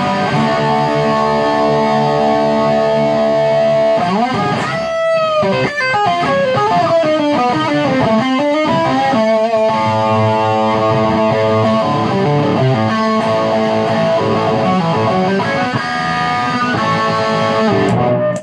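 Overdriven electric guitar played through a Ceriatone One perCentaur overdrive pedal, with its burn control all the way up and stacked on the amp's own gain, into a Ceriatone amp. Sustained chords and notes ring out, the pitch bends down and back up through the middle, and the playing stops sharply at the end.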